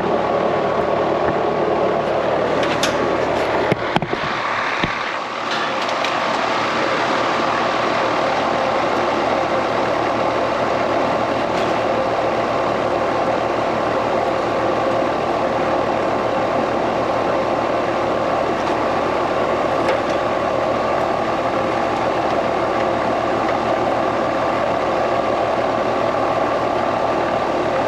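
Steady mechanical hum of running machinery, with a few sharp clicks about four seconds in.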